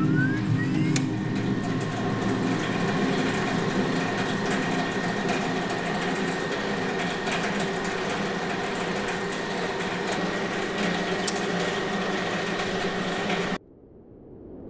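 Electronic drone of an old screen: a dense steady hum with crackling static and a thin high whine, opening with a short rising sweep. It cuts off abruptly near the end, leaving a faint rising rush of noise.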